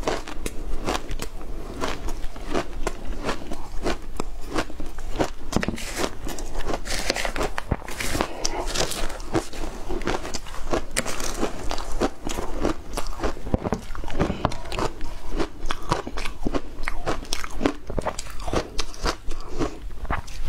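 Close-miked crunching and chewing of frozen shaved ice coated in matcha and milk powder: a dense, unbroken run of crisp crunches.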